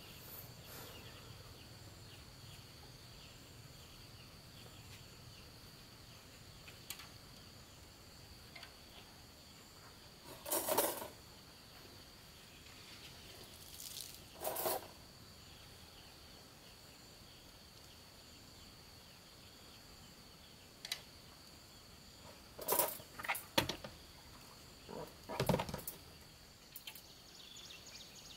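A faint, steady high-pitched drone of insects, with a few short clatters and rustles from handling wet laundry and clothes hangers: about five brief knocks spread through, the loudest near the middle and towards the end.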